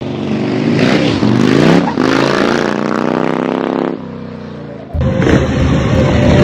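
Motorcycle engine revving in two long pulls, the pitch climbing, then dropping away at about four seconds; a louder, steady mix starts about five seconds in.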